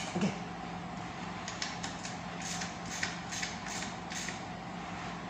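Small clicks and light scrapes of hands and a tool working on a buggy differential: a sharp click and a soft knock at the start, then a run of faint quick clicks from about a second and a half in to past the four-second mark, over a steady low hum.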